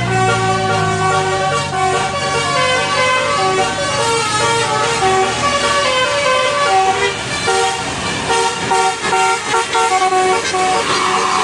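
Bus telolet: a Basuri multi-tone musical air horn on a bus playing a tune, one held note after another, the pitch changing every half second or so.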